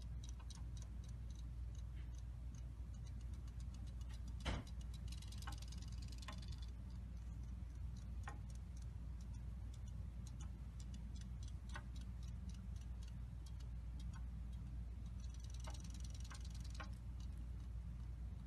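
A Siamese cat lapping water from a glass tank: a string of small, irregular wet clicks, with two brief splashy patches, over a steady low hum.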